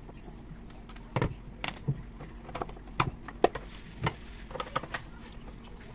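Irregular sharp clicks and knocks from about a second in to near the end: hard plastic parts of a Lutos pressure washer's housing being handled and worked loose during disassembly.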